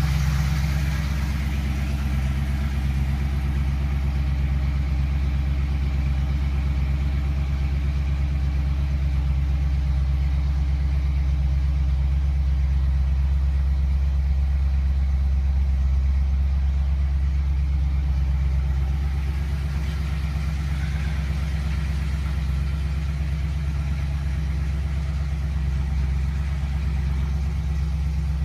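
1977 Ford pickup's engine idling steadily, a low even hum heard from inside the cab.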